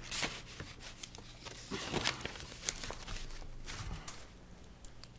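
Paper rustling and being shuffled on a meeting table, with scattered light knocks and clicks over a faint steady room hum.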